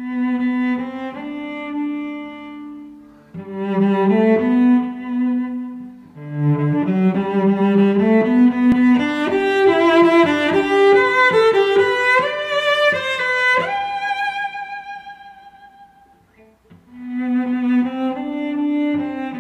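Background music: a slow bowed-string piece led by a cello, in phrases of sustained notes that swell and fade away.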